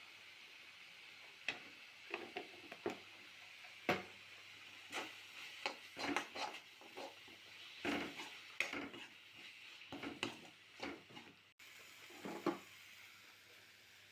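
A spatula stirring in a pan, with irregular scrapes and knocks against the pan from a second or so in until near the end, over a steady faint hiss.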